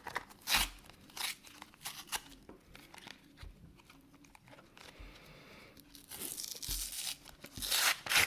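Padlock packaging being torn and crinkled open by hand: scattered crackles, then a longer, louder stretch of tearing near the end.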